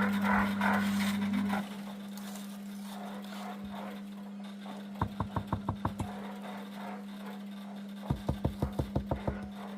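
Two quick runs of sharp knocks, about eight a second, the first about halfway through and the second near the end, over a steady low hum.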